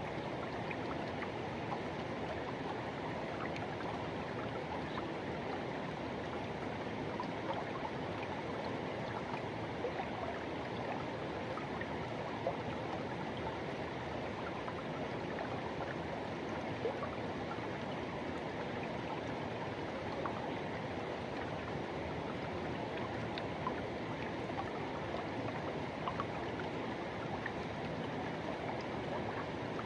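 A forest river rushing steadily over rocks, a constant wash of water with small splashes and gurgles ticking through it.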